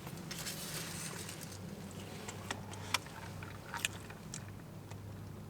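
A person chewing a mouthful of burger, with a few sharp crisp clicks of biting and crunching, over a steady low hum.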